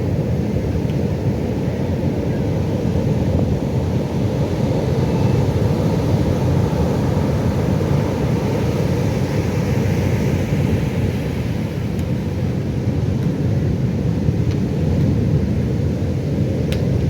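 Ocean surf: a steady low rumble of waves with no distinct single crash.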